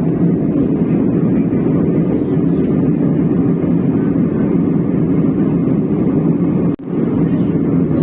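Airliner cabin noise in flight: a steady, low drone of jet engines and airflow heard from inside the passenger cabin. It cuts out for a moment near the end.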